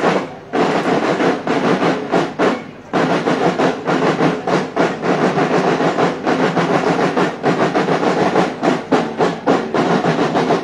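Marching band drums playing a fast, steady cadence. They start abruptly, drop out briefly about half a second in and again near three seconds, then carry on.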